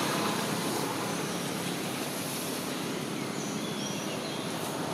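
Steady outdoor background noise, a wind-like or distant-traffic hiss, with a few faint short high chirps about three and a half seconds in.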